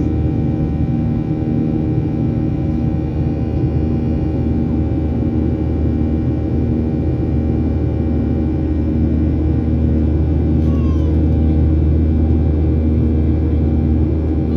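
Cabin drone of a Boeing 737-800 heard from a forward window seat: its CFM56 engines and the airflow make a loud, steady low hum, with a slow pulsing beat a little under once a second.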